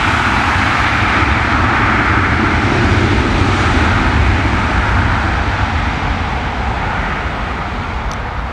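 Jet engine noise from an Airbus A330-300's Rolls-Royce Trent 772 turbofans as the airliner passes on the ground: a loud steady rush over a deep rumble, slowly fading over the last few seconds.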